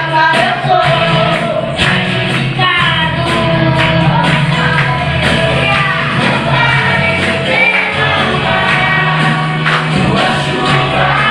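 A children's choir singing a gospel song in unison over steady instrumental accompaniment with a bass line.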